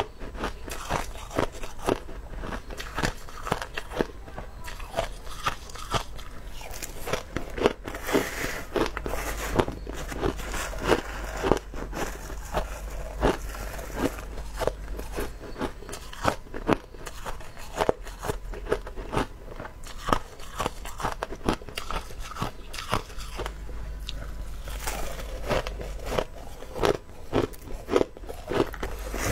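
Crushed ice being bitten and chewed close to the mouth, a dense run of sharp, rapid crunches throughout.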